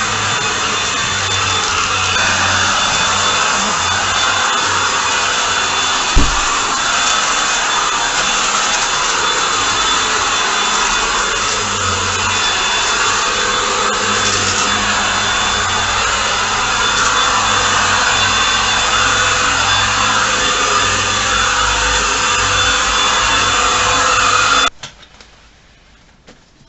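Bush 25.2V cordless stick vacuum cleaner running steadily, its 150 W DC motor and motorised brush head making a constant whirring, with one sharp knock about six seconds in. The motor noise stops abruptly near the end.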